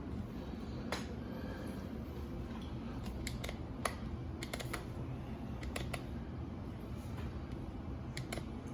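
Scattered small clicks and light knocks from hands handling a portable typewriter in its hard clamshell case, some in quick pairs, over a steady low hum.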